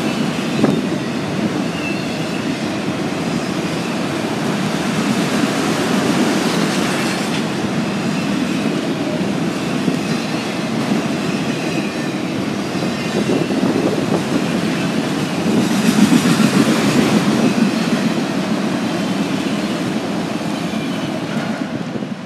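Norfolk Southern freight train of multi-level autorack cars rolling past close by: a steady rumble and rattle of wheels on rail, with a faint high wheel squeal in the first few seconds. The rumble starts to fade at the very end as the last car goes by.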